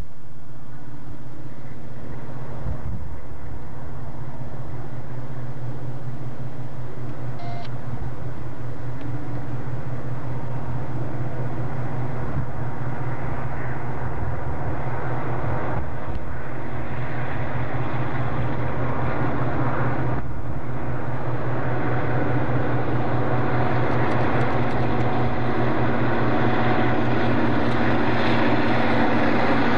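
Santa Fe diesel-electric freight locomotives running in a multiple-unit consist as they approach, with a steady low engine drone. The drone grows slightly louder, and a rushing wheel-and-rail sound rises over the second half as the train draws alongside.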